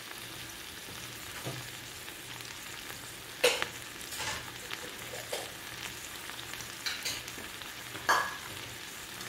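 Chicken pieces sizzling steadily in a stainless steel frying pan, with a few short sharp knocks over the top, the two loudest about three and a half and eight seconds in.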